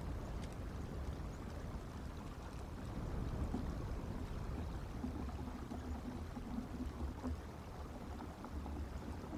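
Steady low outdoor rumble on the eagle-cam's microphone, with a faint steady hum for a couple of seconds in the middle.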